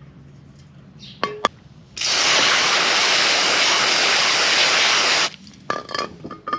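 An aerosol spray can sprayed in one steady blast of about three seconds, starting about two seconds in and cutting off sharply. A few short clicks and knocks come just before and just after it.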